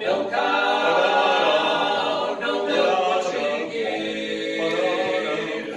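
Male vocal quartet singing a cappella, several voices holding long chords together.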